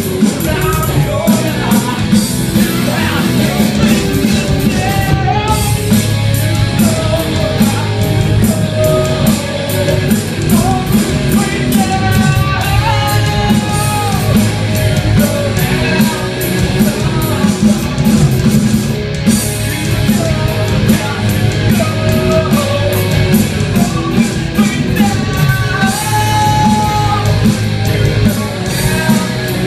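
Rock band playing a song with distorted electric guitars, drums and a singer, loud and continuous.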